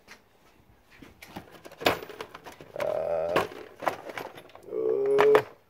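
Several sharp metal clicks and clinks from hand tools being handled on an engine, with two short, wavering, voice-like pitched sounds, each under a second, one in the middle and one near the end.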